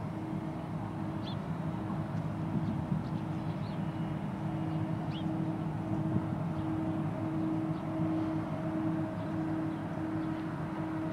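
Marine diesel engines of a container ship and its attending harbour tug running, a steady low drone with a held hum. A few faint bird chirps come through about a second in and again about five seconds in.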